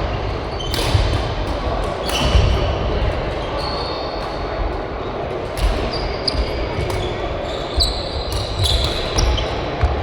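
Badminton rally on an indoor court: sharp racket strikes on the shuttlecock every second or so, with short high squeaks of shoes on the court floor.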